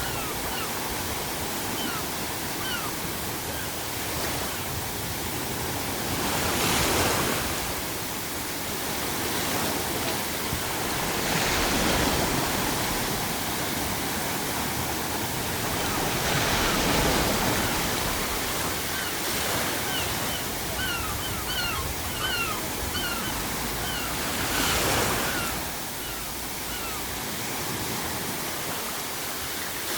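Ocean waves breaking on a shore, swelling in surges every few seconds over a steady bed of added pink noise. Seagulls give short, repeated calls throughout, most busily about two-thirds of the way through.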